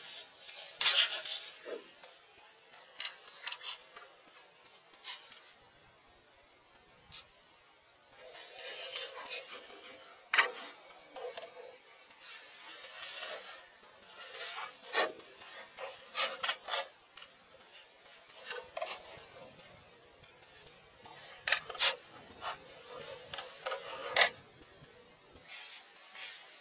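Scattered short scraping and rubbing strokes, with a few sharp clicks, separated by quiet gaps.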